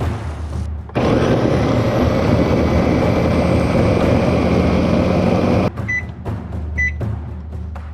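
A kitchen appliance running with a loud, steady whir that starts suddenly about a second in and cuts off abruptly after about five seconds. Two short electronic beeps follow, a second apart.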